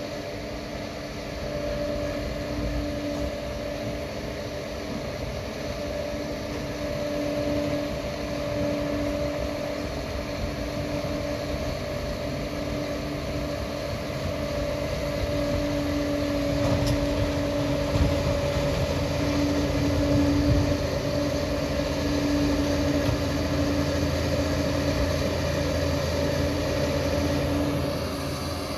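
Engine running steadily with a constant hum; its low rumble grows louder a little past halfway through.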